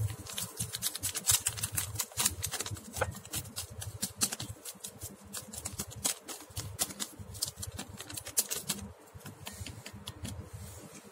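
Instant coffee powder being shaken from a paper sachet into a glass: a fast, irregular crackle of ticks from the packet and the granules hitting the glass. The ticking thins out about nine seconds in.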